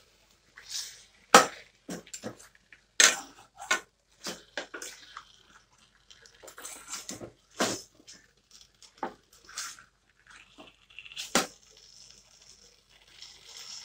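A long-handled spoon stirring marinated chicken pieces and potatoes in a stainless-steel bowl: irregular clinks and knocks of the spoon against the bowl, with soft scraping and squelching of the wet mix between. The sharpest knocks come about a second and a half in, at three seconds, and near the end.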